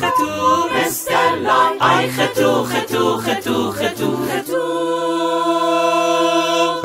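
Intro jingle sung a cappella by voices, with no instruments: a quick rhythmic vocal phrase, ending about four and a half seconds in on one long held chord.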